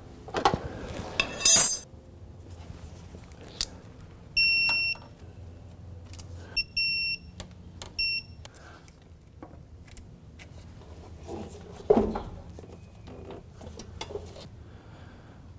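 Hand tools on car suspension bolts: scattered metal clicks and clanks of a wrench and ratchet. About four to eight seconds in come three short high electronic beeps, and a sharp thud about twelve seconds in is the loudest sound.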